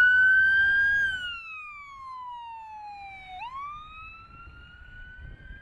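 Emergency vehicle siren wailing: the tone rises to a peak about a second in, falls slowly for a couple of seconds, then rises again. It is loud at first, then much fainter after about a second.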